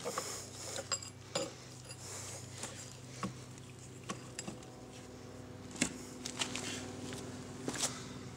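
Hand tools clinking and tapping against metal in scattered light strikes, the two loudest near the end, while a rusted steering part is worked loose, over a steady low hum.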